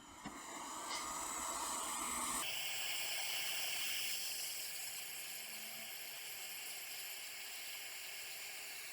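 A steady hiss that changes in tone about two and a half seconds in and again near four seconds.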